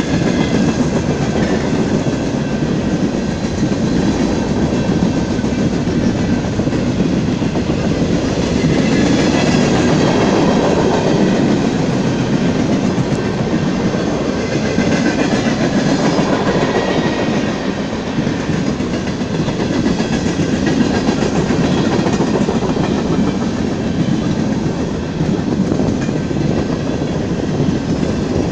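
Freight train cars, gondolas and boxcars, rolling past steadily: a continuous rumble of steel wheels on rail with clickety-clack.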